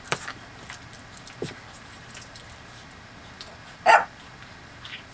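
A small dog gives one short, sharp bark or yip about four seconds in, during rough play between puppies, with a few faint scuffles around it.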